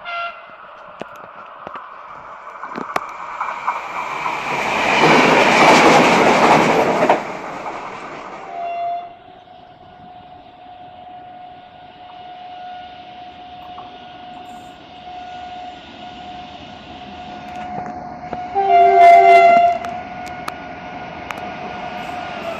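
Renfe train at a station: a loud rushing passage of the train peaks a few seconds in, followed by a steady electric whine. A short horn blast sounds about 19 seconds in.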